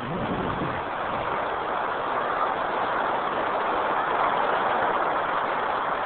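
Surf washing on a beach: a steady rushing noise that swells and eases.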